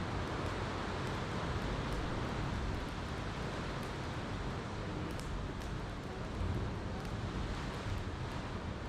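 Steady wash of ocean surf and wind, with a few faint crackles from a campfire.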